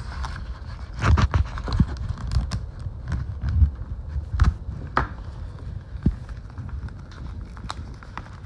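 Cellophane shrink wrap on a box being slit with a knife and picked at by hand: irregular crinkling crackles and clicks, with occasional dull knocks of handling.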